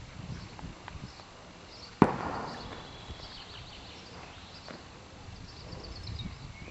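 A single sharp gunshot about two seconds in, with a short echoing tail: the kind of blank-pistol shot fired during dog-sport heelwork to test that the dog stays steady under gunfire. Faint bird chirps and soft footfalls on grass run beneath it.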